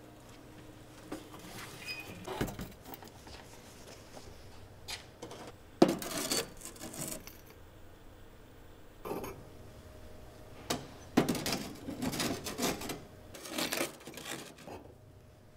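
A long metal scoop scraping along a thin board and clinking against an iron ball and a chunk of brick as it picks them up, in several separate bouts; the sharpest knock comes about six seconds in, with another about eleven seconds in.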